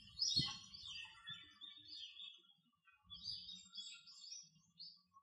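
Small birds chirping in quick runs of short, high notes, with a low thump about half a second in.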